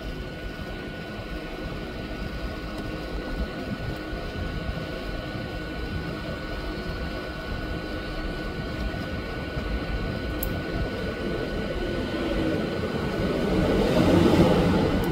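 Hot air rework station nozzle blowing a steady hiss of hot air with a faint steady whine, heating the solder on a phone's USB-C charging port to seat it on its board. The air noise swells near the end.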